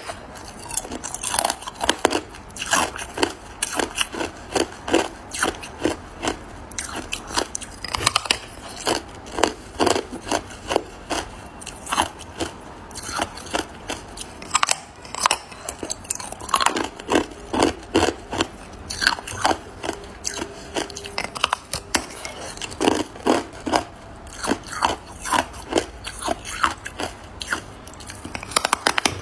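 Teeth biting into a large block of hard clear ice and crunching the pieces: a steady, irregular run of sharp cracking crunches, a couple or so a second.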